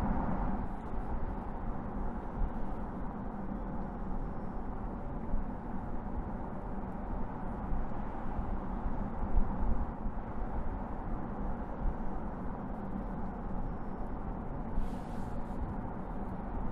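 Audi e-tron Sportback electric SUV driving on asphalt: a steady low rumble of tyres and road noise.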